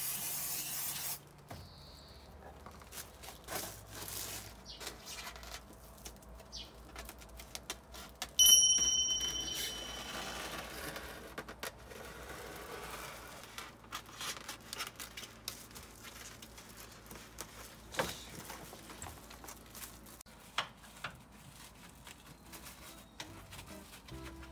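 A spray can hisses for about a second at the start. Then comes the handling of aluminium-foil insulation sheet as it is pressed down and cut with scissors: scattered rustles, crinkles and clicks, with one louder rasp about eight seconds in.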